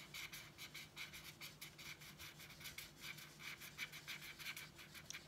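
Felt-tip markers scribbling back and forth on paper, filling in a solid black area: faint, rapid scratchy strokes, about four or five a second.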